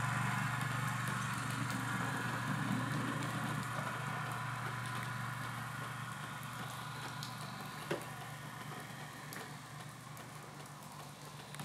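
A small engine running steadily, a low even hum that grows gradually fainter, with a single short click about eight seconds in. The engine is the snow-plowing miniature train's.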